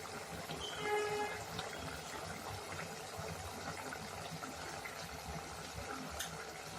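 Chicken gravy simmering in the pan, a steady bubbling hiss, with a brief pitched sound about a second in.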